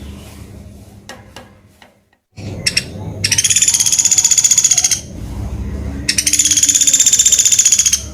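Common flameback woodpecker (pelatuk beras) calling: two rapid, high rattling trills of about two seconds each, the first about three seconds in and the second about six seconds in, with a few faint clicks before them.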